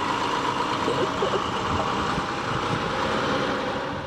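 A farm machine's engine running steadily, with a steady whine over the drone.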